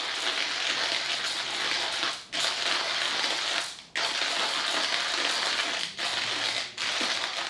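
Hario Smart G hand grinder crunching coffee beans between its ceramic burrs as the crank is turned. The burrs sit on an unfixed axle that lets them move and not match perfectly. The grinding runs steadily, with brief breaks about two and four seconds in.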